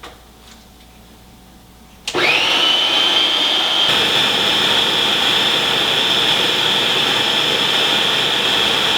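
Food processor motor switching on about two seconds in, its whine rising quickly to a steady high pitch and running loudly as it purées roasted pumpkin.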